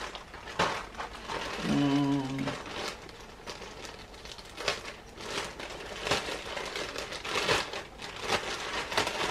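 Clear plastic packaging bag crinkling and rustling as it is handled, in irregular bursts. A brief voiced sound comes about two seconds in.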